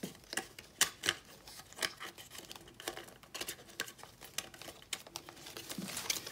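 Plastic phone mount with stiff strap tabs and clips being handled: irregular sharp clicks, taps and rattles, with a few louder clacks in the first two seconds.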